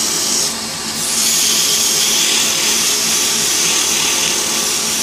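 Wood lathe running while 80-grit sandpaper is held against a spinning pen blank, giving a steady hiss over the motor's hum. The hiss eases for about half a second near the start, then resumes.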